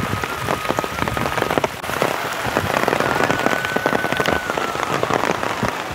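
Heavy rain falling steadily, with many sharp individual drop hits close by.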